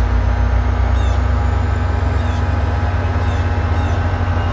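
NJ Transit diesel locomotive 4202 running close by at low speed, its engine giving a heavy, steady low rumble. Faint short high squeaks come about once a second over it.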